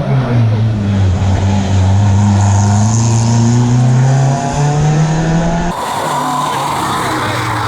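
Rally car engine pulling hard, its pitch climbing steadily with a sudden step up a little past four seconds in. About six seconds in it cuts to another rally car accelerating.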